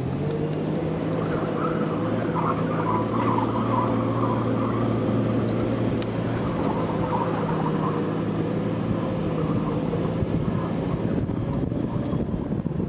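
Car engine running steadily as the car drives across sand dunes, a constant low hum that holds its pitch throughout.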